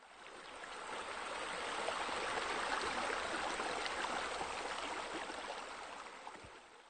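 Water falling from a fountain-style water feature into its pool, a steady splashing rush that fades in over the first couple of seconds and fades out near the end.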